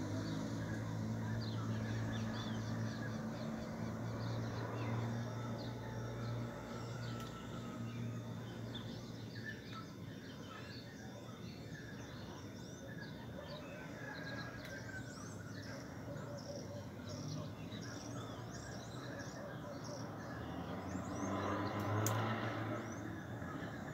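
Birds chirping over a steady low hum, with a brief louder rush about three-quarters of the way through.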